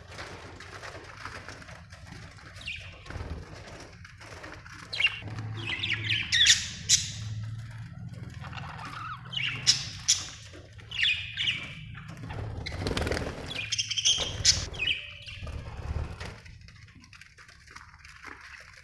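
Budgerigars chirping and chattering in bursts of high-pitched calls, with a stretch of wing flapping about thirteen seconds in, over a steady low hum.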